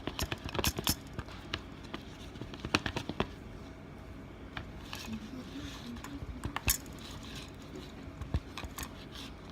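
A spoon stirring glue and water in a bowl for slime, with irregular clicks and scrapes of the spoon against the bowl.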